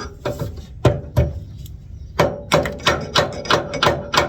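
A hammer tapping on metal: two separate strikes, then a steady run of quick strikes about three a second, each with a short ring.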